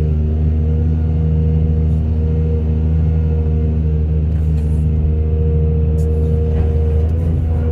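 Heavy diesel engine of earthmoving equipment running steadily at a constant pitch, with a deep hum.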